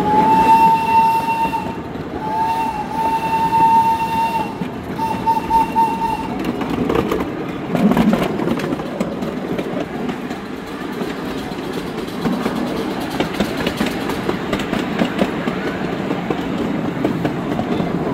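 Steam whistle of a 1960 Crown Metal Products coal-fired miniature steam locomotive blowing three blasts over the first six seconds: the middle one longest, the last one shorter and wavering. After that come the rumble and wheel clatter of the small train running on its track.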